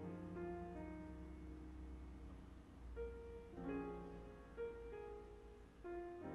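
Soft background piano music, with notes struck every second or so.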